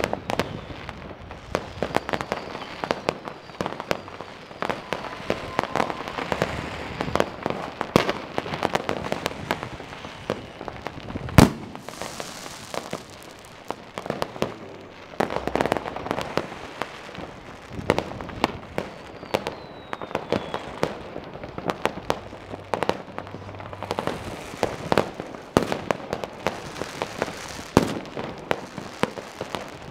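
Consumer fireworks going off all around, near and far: a dense, unbroken stream of rocket bursts and firecracker bangs, with one much louder bang about eleven seconds in and now and then a faint falling whistle.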